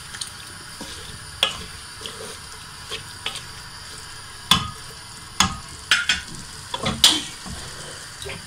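Wooden spoon stirring cauliflower florets into beef and masala in a metal pressure-cooker pot: irregular knocks and scrapes of the spoon against the pot, more frequent in the second half, over a steady sizzle of the hot oil.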